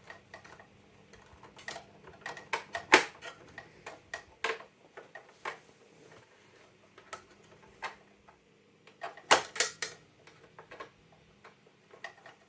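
Irregular small clicks and taps of a hand screwdriver working at screws in a plastic telephone housing. Louder knocks come about three seconds in and again around nine to ten seconds in.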